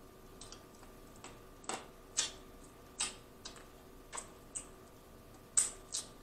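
Mouth sounds of someone eating boiled crawfish: a string of short, sharp wet lip smacks and sucking clicks as he sucks the meat and seasoning from his fingers, about one or two a second, the loudest a little before the end.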